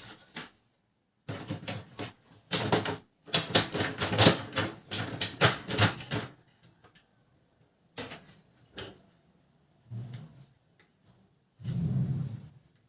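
Parts of a Canon LBP 2900 laser printer being handled and fitted back together during reassembly: a run of rapid clicks and rattles, then a few separate clicks and knocks near the end.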